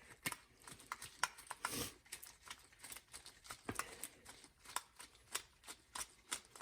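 Faint, irregular clicks and taps of a screwdriver working on a snowblower's carburetor, unscrewing the main jet.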